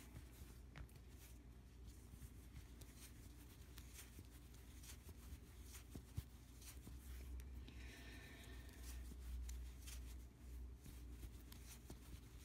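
Near silence, with faint scattered ticks and rustling from a crochet hook working yarn in a chain close to the microphone, over a low handling rumble.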